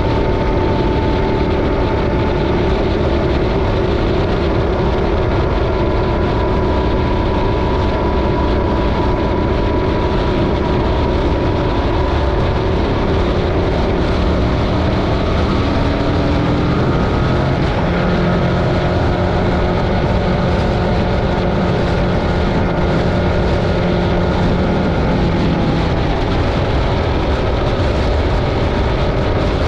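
Yamaha Ténéré 700's 689 cc parallel-twin engine running at a steady highway cruise, under heavy wind and road noise on the helmet-mounted camera microphone. The engine note shifts a little past halfway.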